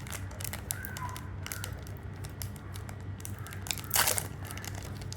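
Foil wrapper of a Pokémon card booster pack being crinkled and torn open, with scattered crackles and a louder crackle about four seconds in.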